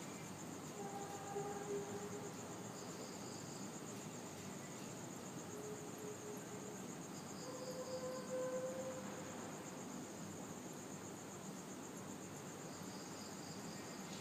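Steady, high-pitched insect chirring with a fast pulse, and three faint, drawn-out low tones of a second or so each: the weird sound heard from the sky.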